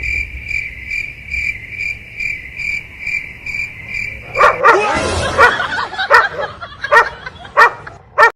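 A high, evenly pulsing chirp, about two pulses a second. About four seconds in it stops and a dog starts barking, a loud bark roughly every second.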